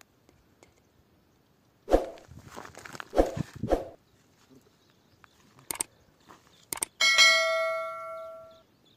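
Shotgun fired at a flock of doves: a sharp bang about two seconds in, then two more close together about a second later. Near the end come two small clicks and a bell ding that rings out for under two seconds: the sound effect of a subscribe-button overlay.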